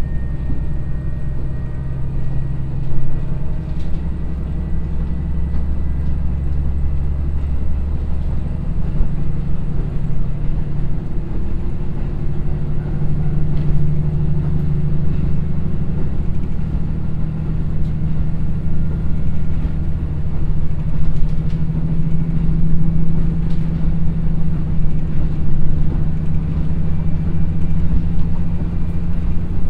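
Onboard running sound of a KiHa 54 diesel railcar, its twin Niigata DMF13HS diesel engines working under power as it accelerates up a grade, over wheel-and-rail rumble. The engine note changes about ten seconds in and then climbs slowly as speed builds.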